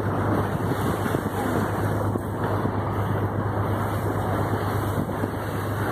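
A boat underway: its motor drones steadily under wind buffeting the microphone and water rushing past the hull.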